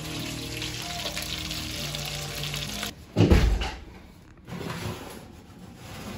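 Background music over a steady hiss for about three seconds, then a loud low thump as the oven is opened, followed a second and a half later by a shorter, softer rattle of the metal oven rack sliding out with a glass baking dish on it.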